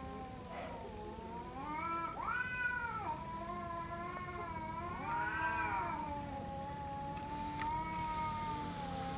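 Two cats yowling at each other in an aggressive standoff, the threat caterwaul that comes before a cat fight. It is one long, unbroken, wavering wail that rises in pitch about two seconds in and again about five seconds in, then settles.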